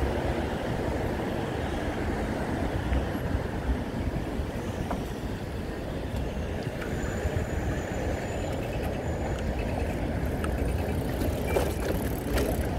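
Steady wind rush on a chest-mounted camera's microphone and the rumble of a bicycle rolling along a city bike lane, with road traffic around it. A few light clicks near the end.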